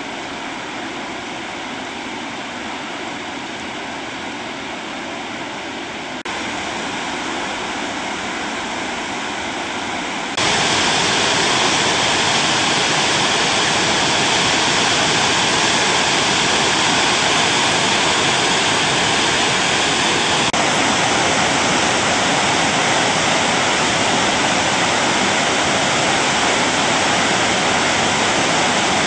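Waterfall and river rapids: a steady rush of whitewater, stepping up in loudness suddenly twice, about six and ten seconds in.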